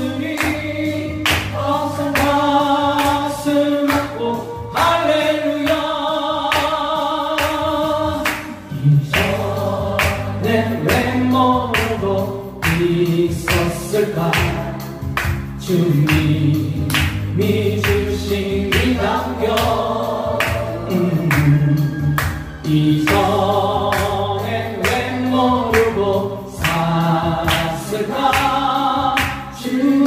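Gospel praise song: choir-style singing over backing music with a steady bass and beat.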